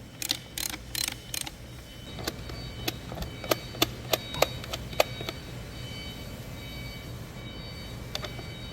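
A string of sharp knocks and clicks: a few rougher strikes in the first second and a half, then about ten clean clicks, over a steady low hum.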